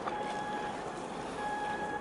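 Steady harbour background noise of wind and water, with an electronic warning beeper sounding twice, each beep about half a second long.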